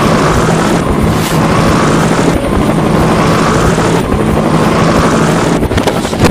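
Helicopter-style rotor sound effect for a cartoon propeller-driven flying platform: a steady whir with a low hum, looped about every second and a half.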